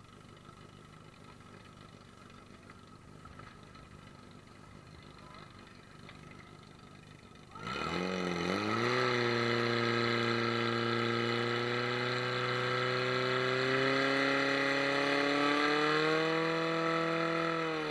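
Portable fire-pump engine opening up suddenly to full throttle about halfway through, its pitch rising over a second and then holding high and steady as it pumps water out through the attack hoses, before the pitch sags near the end. Before it the sound is much quieter.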